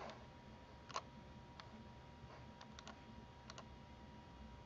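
Faint, scattered clicks of a computer mouse, about eight in a few seconds, the loudest about a second in, over near-silent room tone.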